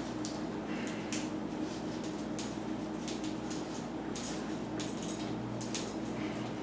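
Light metallic clicks and clinks, scattered and irregular, from working a bicycle chain with a multi-tool's chain-breaker, over a steady low hum.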